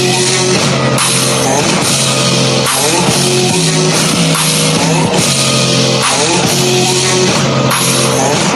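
Rock music with a driving beat, distorted guitar and drums, and singing.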